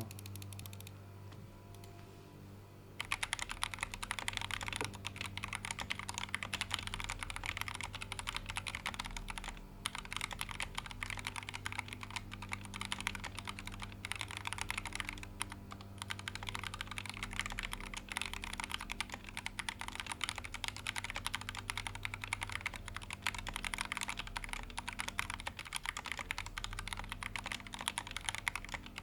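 Typing on a Glorious GMMK 2 65% mechanical keyboard with factory-lubed Glorious Fox linear switches, aluminium top and plastic bottom case: fast, continuous keystrokes starting about three seconds in, with a couple of brief pauses.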